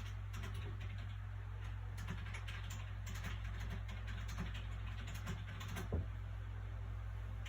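Soft paper sounds of a book being handled: scattered small taps and rustles of the pages, with one sharper knock about six seconds in, over a steady low background hum.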